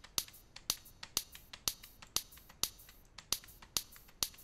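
Snare sound built from a recorded handclap, processed with a high-pass filter, a compressor and a small reverb, played back in a loop. It is a quick, even run of sharp, bright hits at about four a second.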